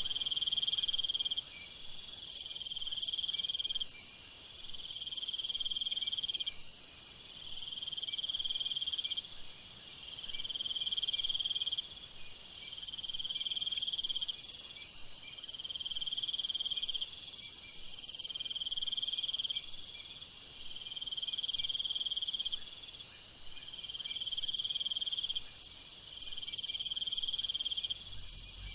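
Night-time jungle insect chorus: a loud trilling call repeats about every two seconds over a continuous high-pitched shrill of many other insects.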